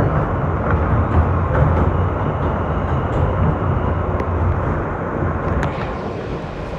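R160 subway train heard from inside the car, running on the elevated track: a low rumble of wheels and running gear that fades gradually as the train slows into the station.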